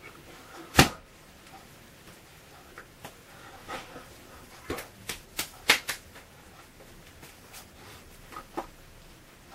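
Sharp slaps and taps of hands striking against each other: one loud slap about a second in, a quick cluster of several in the middle, and two softer taps near the end.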